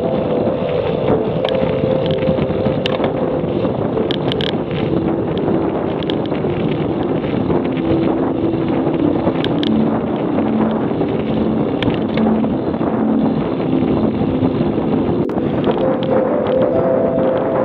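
Steady wind rush on the microphone of a camera riding on a road bike at about 30 km/h, with tyre and road noise and a few small clicks.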